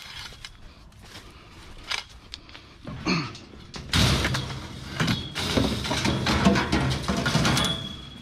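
Long metal poles clattering and scraping against a wire-mesh cage as they are loaded, a dense run of knocks and rattles starting about halfway in and lasting nearly four seconds, with a short ringing tone near the end.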